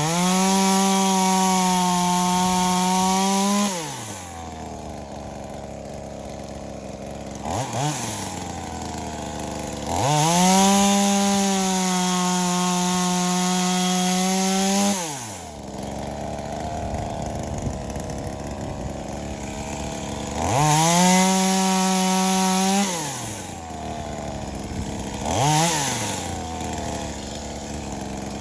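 Small two-stroke top-handle chainsaw, a V-Modest 2511T clone of the Echo 2511T, opened to full throttle and held there three times for a few seconds each, dropping back to idle between, with two short throttle blips.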